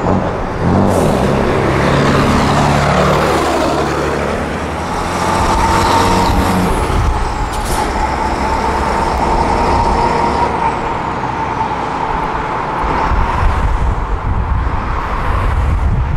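Classic diesel trucks driving past: the engine of a red tractor unit running loudly, its pitch falling as it passes in the first few seconds. A steady whistle then holds for several seconds as it drives away, with a couple of short sharp hisses.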